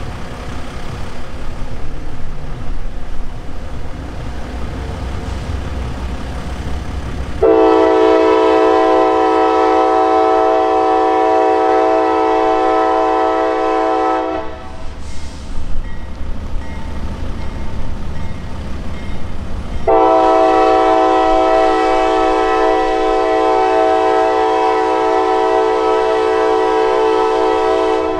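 Locomotive air horn of a Norfolk Southern GE AC44C6M sounding two long blasts, a chord of several steady tones, as the train approaches a grade crossing. The first blast starts about a quarter of the way in and lasts about seven seconds; the second starts about two-thirds of the way in and lasts about eight seconds. Before the first blast there is only a low rumble.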